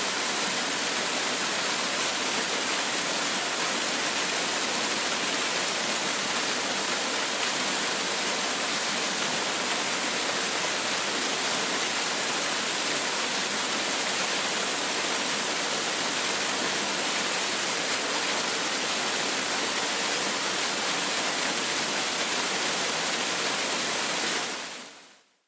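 A steady, even rush of water, hissy and unchanging, fading out near the end.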